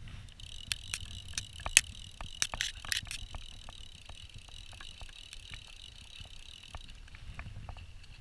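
Fly reel's click ratchet buzzing steadily as line runs through it for about seven seconds, with sharper clicks during the first three seconds.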